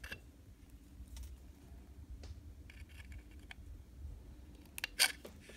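Small wire cutters snipping the tops off thin wire handrail stanchions: faint scattered clicks, then a few sharp snips near the end.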